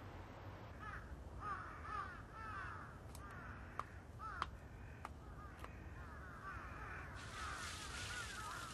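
Crows cawing, many short arched calls overlapping, with a few sharp ticks in the middle and a hiss coming up near the end.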